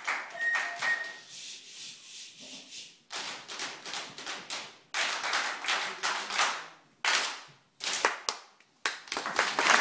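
Body percussion by a row of drum band players without instruments: a few claps, then hands rubbing and swishing in several swells that start sharply and fade out. Applause starts just at the end.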